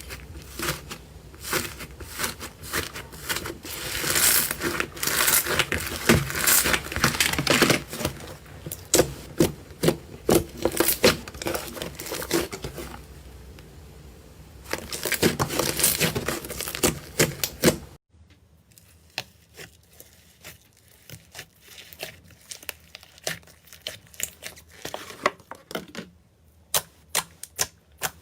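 Slime being squeezed and worked by hand, giving a dense run of crackling, popping clicks. About eighteen seconds in it cuts to a quieter take with sparser clicks.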